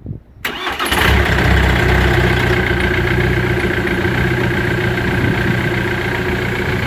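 Ford Mondeo ST TDCi diesel engine cranking and catching within about a second on its first start after the rebuild, then idling steadily.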